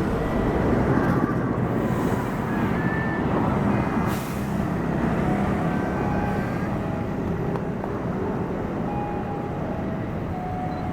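Passenger train running close by: a steady rumble of wheels on rails, with scattered short high squeals and a brief hiss about four seconds in.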